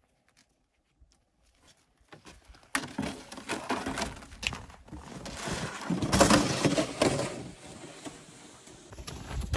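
Near silence at first, then from about three seconds in, a rough crunching and scraping as boots tread through snow and a plastic sled is dragged along, loudest around six seconds in.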